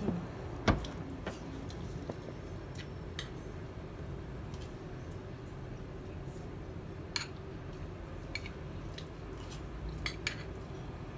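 Cutlery clinking against a dish now and then during a meal: a handful of short, scattered clicks, the sharpest about a second in, over a steady low room hum.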